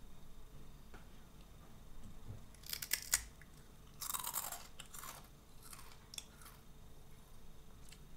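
Crunchy puffed snack sticks being bitten and chewed, with sharp cracks about three seconds in followed by two rounds of crunching chewing.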